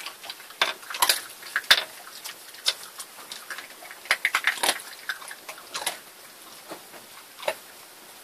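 A Jack Russell terrier eating dry kibble from a bowl: irregular sharp crunches and clicks of hard food against the bowl, a few a second.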